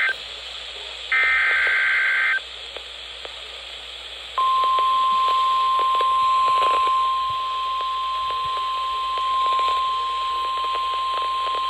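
NOAA Weather Radio SAME alert header: one buzzy digital data burst ends right at the start and another follows for just over a second. After a pause of about two seconds, the steady 1050 Hz weather radio warning alarm tone comes on about four seconds in and holds, over constant radio hiss. Together they announce a new severe thunderstorm warning.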